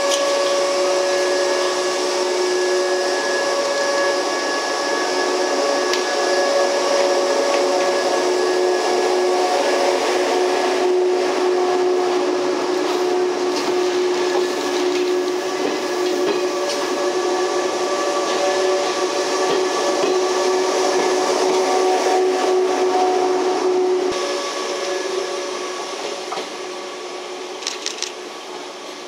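A Kumoya 145 and Kuha 117 deadhead electric train moving slowly past, its onboard equipment humming with a steady mix of held tones over rolling wheel noise. The sound fades over the last few seconds as the train draws away.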